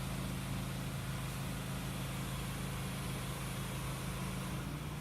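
A steady low engine hum, unchanging throughout, over a faint even background hiss.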